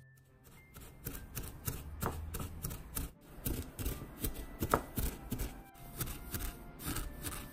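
A wooden spatula scrapes and stirs sesame seeds in a dry non-stick pan as they toast. About three seconds in, this gives way to a pestle grinding the toasted seeds in a small ceramic mortar, in quick, irregular gritty strokes.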